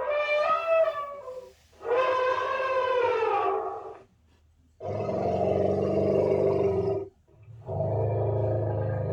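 Woolly mammoth sound effect: four calls in a row. The first two are higher and waver in pitch; the last two are longer and lower, with a deep rumble beneath them.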